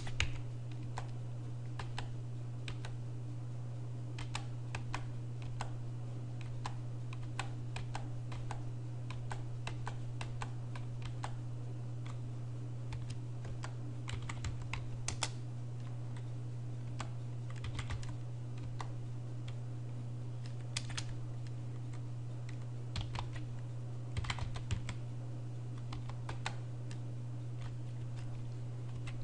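Keys of a computer keyboard being typed in short, irregular runs of clicks, over a steady low hum.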